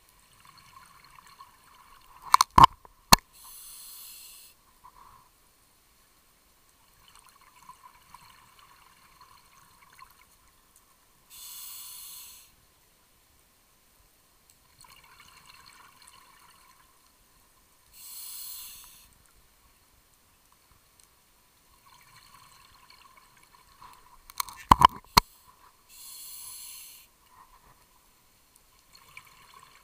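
Scuba diver's regulator breathing, heard underwater through the camera housing: four hissing breaths of about a second each, roughly seven seconds apart, with faint crackling bubbles between them. Two clusters of sharp clicks, one in the first few seconds and one near the end.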